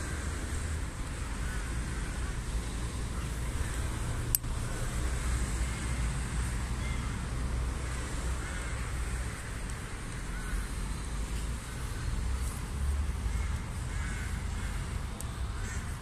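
Wind rumbling on the microphone, with birds calling in the background. About four seconds in, a single sharp click: the Pro-Tech Malibu folding knife's blade snapping open and locking. A couple of fainter clicks come near the end.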